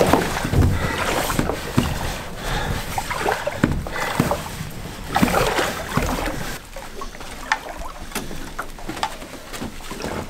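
Water splashing and sloshing around a canoe as a person wades beside it in the shallows, with scattered short knocks against the hull.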